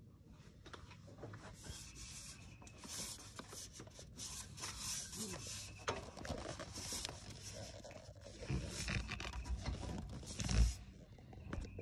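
Irregular rubbing and scraping handling noise, with small knocks, as a hand and the phone brush against the mower's engine shroud and body panel. There is a louder thump near the end. The engine is not running.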